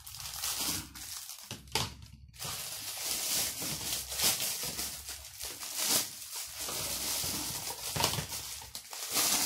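Clear plastic packaging bag crinkling and rustling in irregular handfuls as a plastic food pusher is unwrapped from it by hand.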